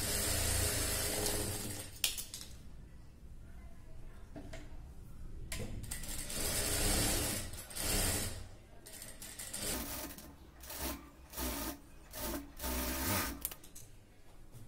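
Table-mounted sewing machine stitching a seam in spurts: a run of about two seconds at the start, another partway through, then several short bursts near the end.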